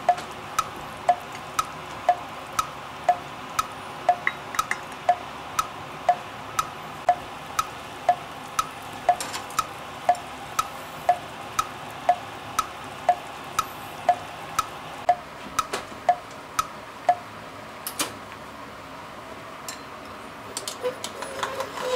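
A clock-style tick-tock, ticking about twice a second and alternating a lower and a higher tick, over the steady hiss of a pot simmering on a gas burner. The ticking stops about 17 seconds in, and a few light clicks follow near the end.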